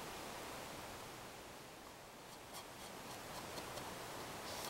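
Faint rubbing and handling sounds, with a run of light clicks from about halfway: a cloth rag wiping squeezed-out glue off a clamped wooden frame while the metal bar clamps are handled.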